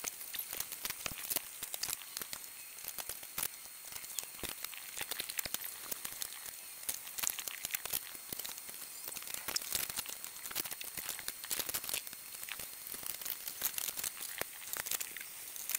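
Fast-forwarded kitchen work: a dense, continuous run of quick clicks, clatters and crackles from dishes, utensils and food being handled, over a steady high hiss.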